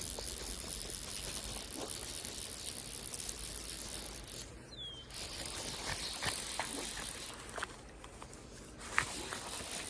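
Fly reel's ratchet clicking in a fast, even run as line is wound in. It stops briefly about halfway and again for about a second near the end, with a light knock just before the end.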